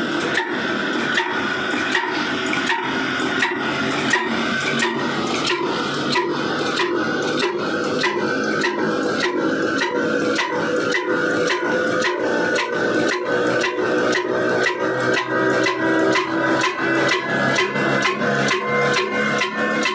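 Old stationary diesel engine running with a regular beat of firing knocks, picking up speed from under two beats a second to nearly three.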